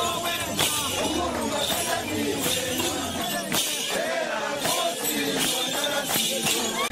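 A group of Ngoni warriors singing and chanting together, with sharp rattling, clinking strikes roughly once a second over the voices.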